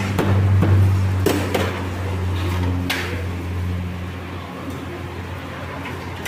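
Restaurant counter sounds: a few sharp clinks of a ladle against a steel pot of curry gravy, over a low steady drone that fades after about three seconds.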